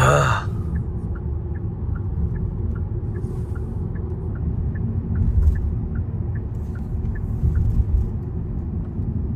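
Steady low rumble of road and engine noise heard from inside a moving car, with a faint, regular ticking about two to three times a second.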